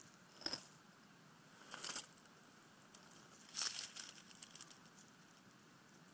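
Three short dry rustling, crinkling sounds close to the microphone, about half a second in, about two seconds in and, loudest, about three and a half seconds in, followed by a few faint crackles.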